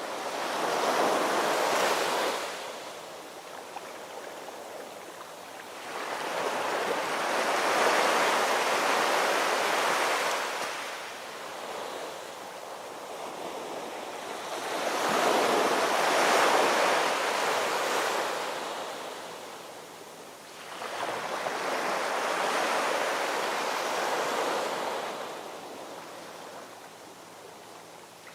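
Sea waves washing in, a rushing swell that rises and falls away about every seven seconds, four times.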